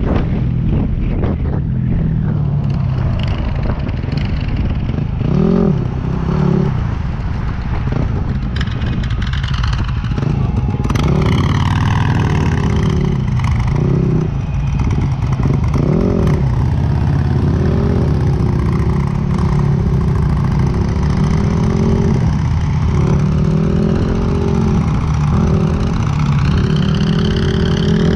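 Yamaha WR250X's single-cylinder four-stroke engine running on the road, its pitch rising and falling as the throttle opens and closes, with wind noise on the microphone.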